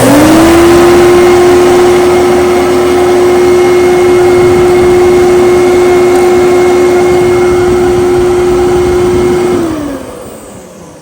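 Kenmore-branded Fantom Destiny Plus upright bagless vacuum cleaner switched on, its motor whining up to speed within a fraction of a second and running steadily at full power. Near the end it is switched off and the whine falls in pitch and fades as the motor winds down.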